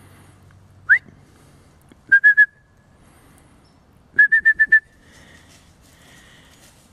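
Whistling to call a dog: one quick rising whistle, then three short, sharp notes at one pitch, and about two seconds later a quicker run of five more.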